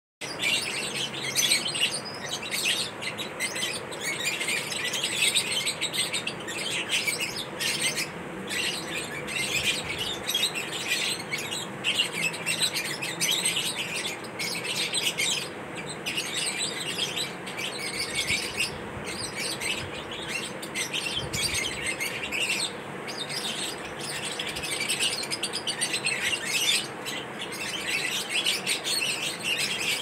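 Lovebirds in an aviary chattering: dense, unbroken high-pitched chirping and twittering.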